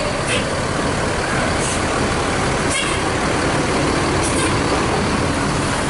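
Tour bus engine running close by: a steady, loud rumble with no horn melody.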